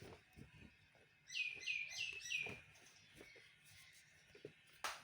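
Baby monkey giving four quick high-pitched squeaks in a row, each falling in pitch, about a second in.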